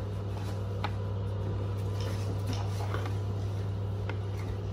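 Steady low hum, with a couple of faint clicks.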